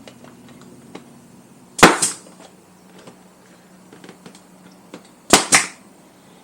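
Pneumatic nail gun firing twice, about three and a half seconds apart. Each shot is a sharp crack with a quick second snap just after it.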